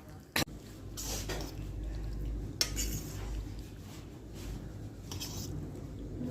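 A metal utensil clinking and scraping against cookware in a home kitchen: one sharp clink near the start, then three short scraping strokes a second or two apart.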